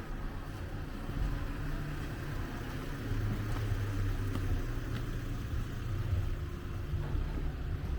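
A car's engine running close by on the street: a steady low rumble that swells a little about three seconds in.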